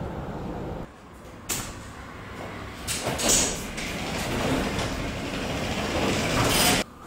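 Steady outdoor rumble, then a sharp click followed by footsteps and clothing rustling that grow louder as a person walks right up to the microphone, cut off abruptly near the end.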